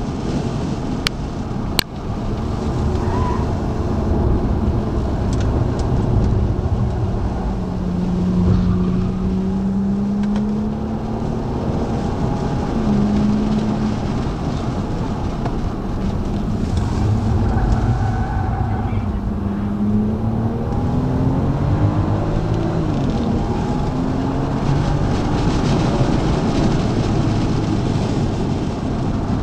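A BMW's engine heard inside the cabin at track speed, easing off and pulling hard again between corners, its pitch falling and rising with the revs, over a constant rush of road and wind noise. Two sharp clicks about one and two seconds in.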